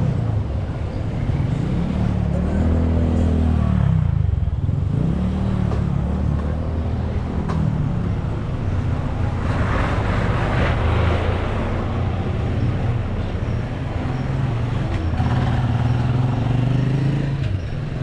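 Small motorcycle engines of sidecar tricycles running and passing along a street, the engine pitch rising and falling as they go by, with general street traffic noise.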